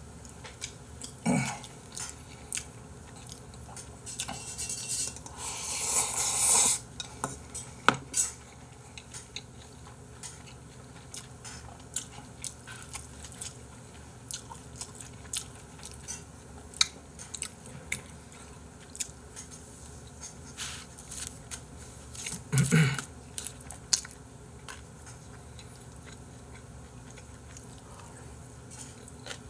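Close-miked eating sounds of bossam pork and ramen: chewing and biting, with chopsticks clicking against the bowls and plastic food containers many times. About five seconds in there is a louder burst of noise lasting about two seconds.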